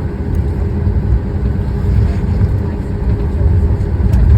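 Boeing 737 MAX taxiing, its CFM LEAP-1B engines giving a steady low rumble with a constant hum above it, growing slightly louder.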